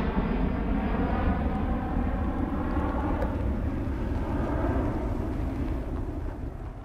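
Twin-engine jet airliner climbing away after takeoff: a deep, rumbling jet roar, fading over the last second or so as the plane gets farther off.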